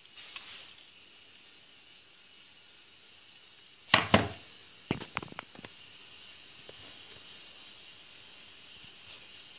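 Steady hiss, with a burst of loud knocks about four seconds in and a few lighter clicks just after: the camera being handled while the battery pack and its wired-on circuit board are moved.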